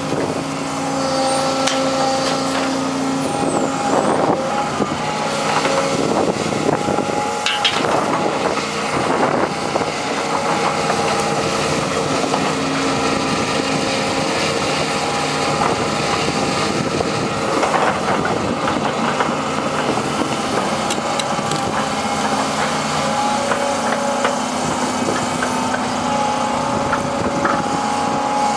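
Daewoo hydraulic excavator running steadily under load as it swings and works its boom and bucket, with an even whine over the diesel engine. A few knocks and clanks sound about four, eight and eighteen seconds in.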